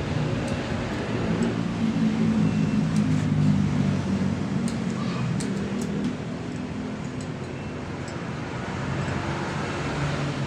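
An engine running steadily with a low hum, a little louder for a few seconds near the start, with a few light clicks over it.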